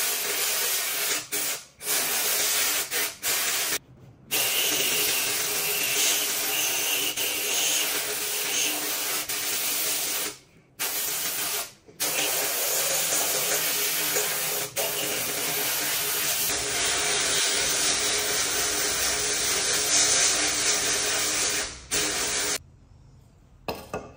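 Compressed-air abrasive blaster in a blast cabinet hissing steadily as it strips an aluminium engine flywheel and other two-stroke brush cutter engine parts, with a few short breaks in the blast. It stops shortly before the end.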